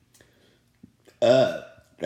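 A person's loud burp, starting just over a second in and lasting about half a second, its pitch wavering as it goes.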